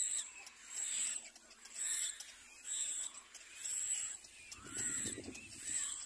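Little black cormorant chicks begging at the nest: high calls repeating about once a second, with lower, rougher calls joining about four and a half seconds in.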